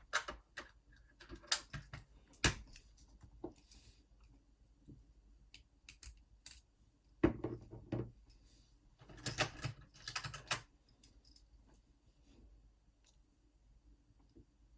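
Small metal clicks and rattles of a key and an Assa Twin 6000 lock being handled, in scattered bursts with the busiest stretch between about seven and ten and a half seconds in.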